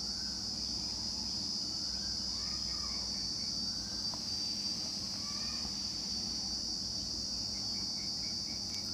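A steady high-pitched insect drone, with faint short chirps now and then, including a quick run of them near the end.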